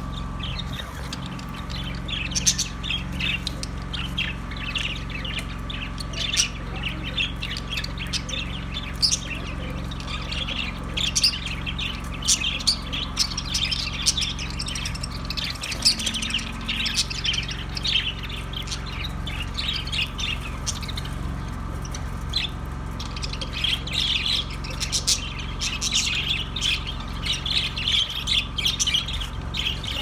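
A flock of budgerigars chattering continuously, many short chirps and squawks overlapping, over a steady low hum.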